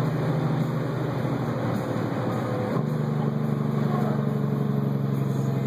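Tanker truck's diesel engine running steadily while driving, heard from inside the cab. Its note steps up in pitch about halfway through, as after a gear change.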